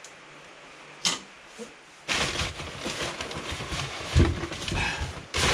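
Cardboard packaging being handled and pulled open: a short click about a second in, then continuous rustling and scraping with louder bursts, starting about two seconds in.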